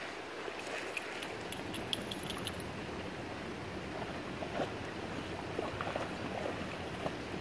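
A puppy splashing and thrashing about in shallow water, with short splashes that come thickest in the second half, over a steady rush of background noise.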